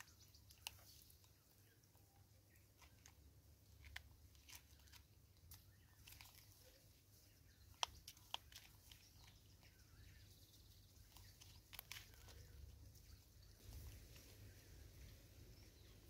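Faint scattered clicks and crunches from a vervet monkey picking seed out of a plastic bottle bird feeder and chewing it, a few at a time with pauses between.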